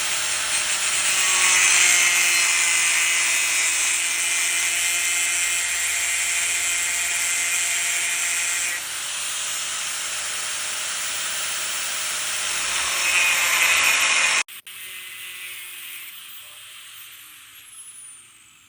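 Angle grinder cutting a 1/4-inch steel plate freehand: a steady, harsh grinding hiss that stops abruptly about fourteen seconds in, leaving a fainter sound that dies away with a falling whine.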